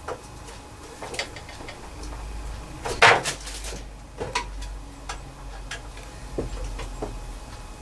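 Scattered clicks and knocks of a screwdriver and screws as a small plastic tool tray is tightened onto a wood lathe, with a louder clatter about three seconds in.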